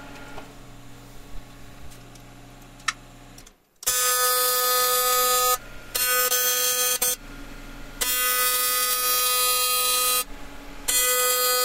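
AC TIG welding arc on aluminum from a Miller Dynasty 400, a steady-pitched loud buzz over hiss that switches on and off sharply in four stretches of about one to two seconds each, starting about four seconds in. Before that only a faint steady shop hum.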